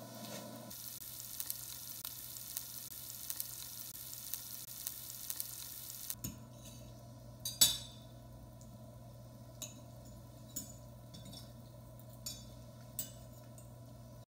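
Eggs sizzling in a frying pan for about six seconds, then forks clinking and scraping on plates now and then, the loudest clink about halfway through, over a low steady hum.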